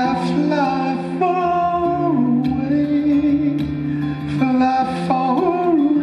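Solo acoustic guitar with a man singing without words, in long held notes that slide from pitch to pitch.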